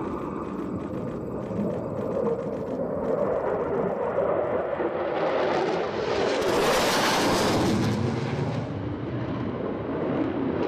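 F-16 Fighting Falcon jet flying a low show-of-force pass overhead: a broad jet rush that grows louder and is loudest about six to eight seconds in, then eases slightly.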